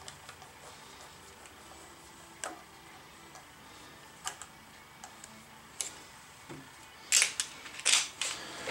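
Small parts and hand tools handled at a lathe's steel bench: a few light, sparse clicks, then a cluster of louder clicks and clatter about seven seconds in as a screwdriver is picked up.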